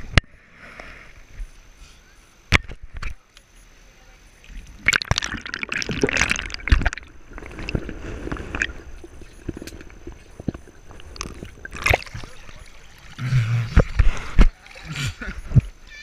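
Pool water heard through a camera held underwater: muffled gurgling and sloshing, with irregular swells of splashing and a few sharp clicks.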